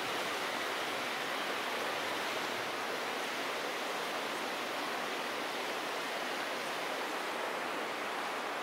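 Steady rushing noise, like running water or wind, that does not change; no train sound stands out.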